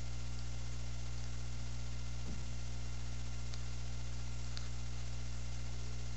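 Steady low electrical hum with an even hiss over it, the recording's own background noise, with no other sound standing out.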